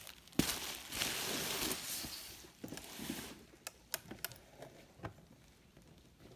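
Packaging being handled: a sharp click, then about two seconds of dense rustling and crinkling, followed by a few light clicks and taps.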